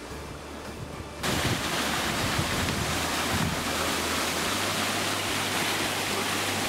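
Rushing water: a steady, loud rush that starts suddenly about a second in, as of water pouring from the lake's drainage siphons or the dam outflow.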